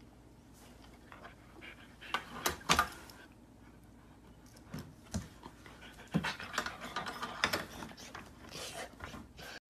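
A dog panting in short, breathy puffs: a few about two to three seconds in, then a quicker run of them over the last few seconds.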